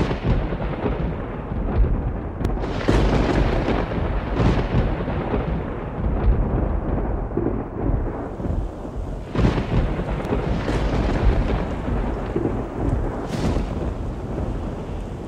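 Thunderstorm: a steady hiss of rain under deep rolling thunder, with several sharper cracks and swells that come and go through it.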